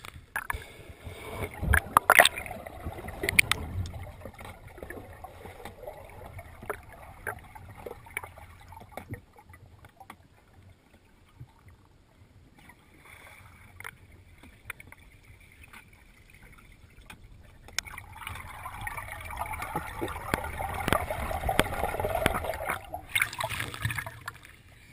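Water sloshing and lapping against a camera held at the water's surface, with a few sharp splashes in the first few seconds and a quieter stretch in the middle.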